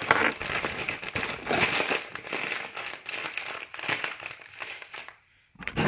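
A bag crinkling and rustling as it is handled for about five seconds, then a brief pause and a sharp knock near the end.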